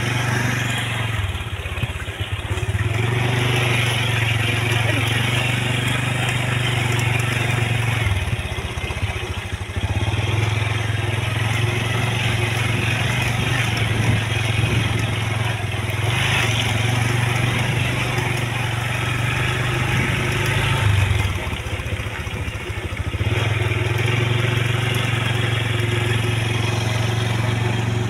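Motorcycle engine running at a steady speed while riding, with wind and road noise. The engine note eases off briefly three times, about a second in, around eight seconds in and around twenty-one seconds in.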